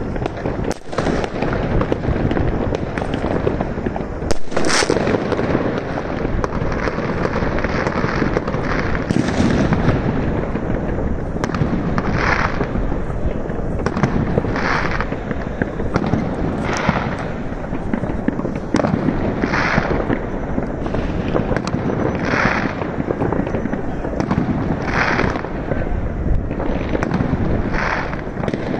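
Many fireworks going off at once: a continuous crackling and popping, with sharp bangs in the first few seconds and further bursts about every two to three seconds in the second half.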